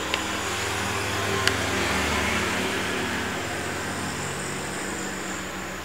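Steady low hum and hiss of background noise, with a short sharp click about one and a half seconds in.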